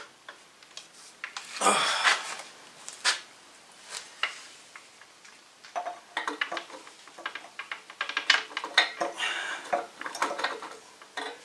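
Irregular metallic clinks, knocks and scrapes of a gearbox being offered up to the clutch and bellhousing at the back of a Ford flathead V8, as it is wiggled to find the clutch spline. There is a longer scraping rattle about two seconds in and a busy run of knocks in the second half.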